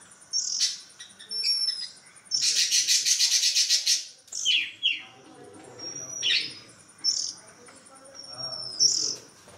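Oriental magpie-robins calling: short high whistles that slide up and down, a loud rapid rasping chatter lasting about two seconds, and several quick downward-sweeping calls.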